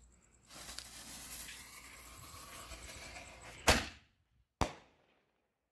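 Fuse of a consumer canister shell hissing for about three seconds, then a sharp, loud launch bang from the mortar tube, followed about a second later by a second, slightly quieter bang as the shell bursts.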